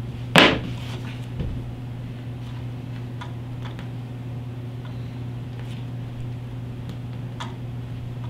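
Hands handling wires and a roll of electrical tape on a wooden tabletop: one sharp knock about half a second in, then a few faint scattered clicks, over a steady low hum.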